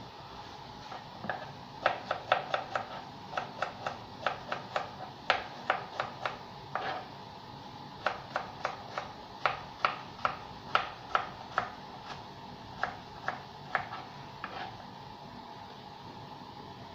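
Kitchen knife slicing a cucumber into rounds on a plastic cutting board: a run of sharp chops, about three or four a second, that starts about two seconds in, pauses briefly midway and stops a couple of seconds before the end, over a faint steady hum.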